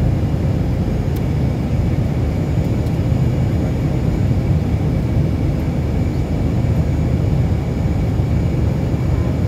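Steady low roar of jet engines and rushing air inside the cabin of a Cayman Airways Boeing 737 in flight, heard at a window seat over the wing, with a faint steady whine above the rumble.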